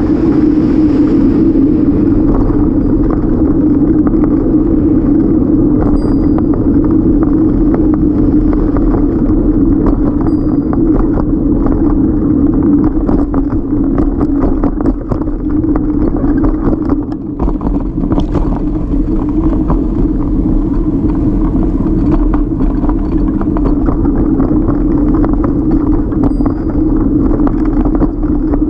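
Steady rumble of a folding bike riding over pavement, picked up by a camera mounted on the bike, with light rattles and clicks from the bike throughout.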